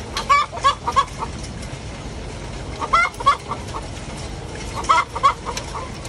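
Laying hens cackling: three bursts of several quick clucks, about two seconds apart. This is the egg song a hen gives after laying an egg.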